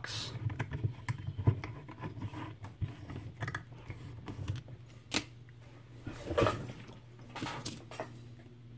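Scattered light clicks and knocks as a padlock is handled, a few sharper ones about five and six and a half seconds in, over a low steady hum.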